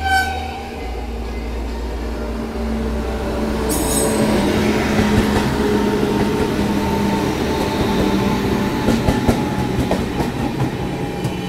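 A passenger train's electric locomotive running close alongside on the next track, its steady hum getting louder about four seconds in as it draws level. Wheels clatter over rail joints, with scattered clicks near the end, and there is a brief high tone at the very start.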